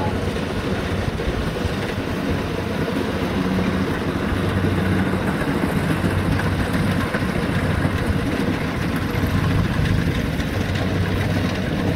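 Engine running steadily, a constant low hum under a spread of machinery noise.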